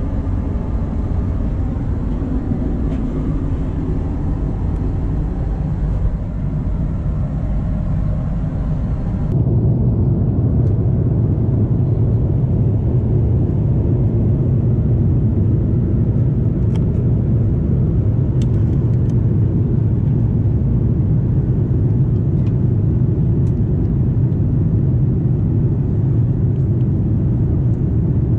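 Airbus A330-300 cabin noise in flight: a steady, loud low rumble. About nine seconds in it steps up slightly louder and deeper and stays even after that.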